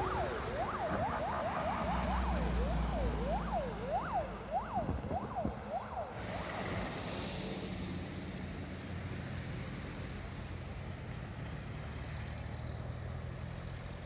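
Electronic emergency-vehicle siren yelping in fast rising and falling sweeps, about two a second. It fades out about six seconds in, leaving steady vehicle and traffic noise.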